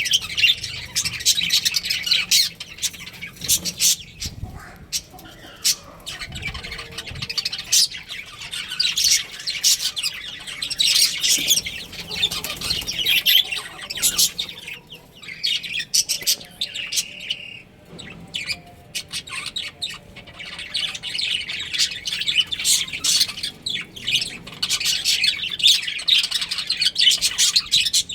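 A colony of budgerigars chirping, with many quick calls overlapping and only brief lulls about halfway through.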